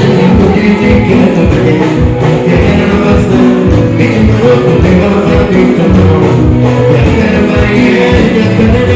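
Loud live band music with singing over a steady, driving drum beat.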